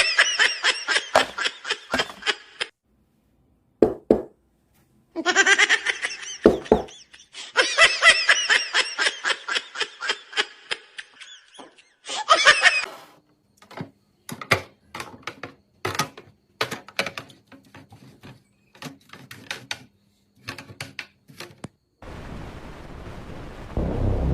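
Bursts of laughter in quick pulses, cut off abruptly several times, followed by a run of light, irregular clicks and knocks over a faint hum.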